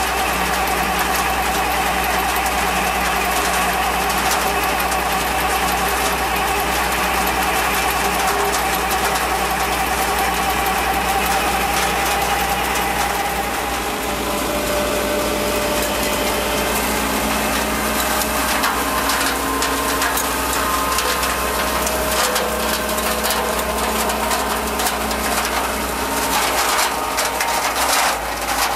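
ASA-LIFT GB-100 green bean harvester running, a steady mechanical hum with constant tones, as its tined picking drum strips the bean plants. Rattling and clicking grow busier in the second half.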